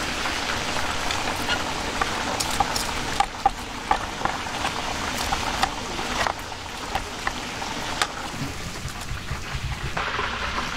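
Hot oil sizzling steadily as food deep-fries, with scattered crackles and pops.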